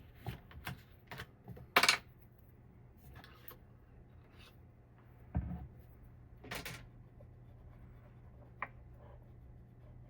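Scattered light clicks and taps with soft rubbing in between, from hands wiping old thermal paste off a CPU with isopropyl alcohol. The sharpest click comes just before two seconds in.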